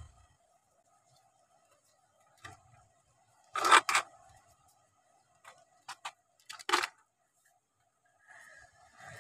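Handling noise: a scattering of sharp clicks and knocks, the loudest a pair close together about three and a half seconds in and another near seven seconds, over a faint steady hum.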